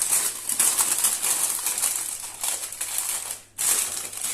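Baking beans clattering and shifting on greaseproof paper as they are pushed into the edges of a pastry case, with the paper crinkling: a dense patter of small clicks that breaks off briefly about three and a half seconds in.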